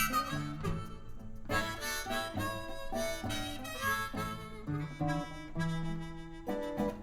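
Blues harmonica solo with bending notes, over an electric blues band's guitar and bass backing.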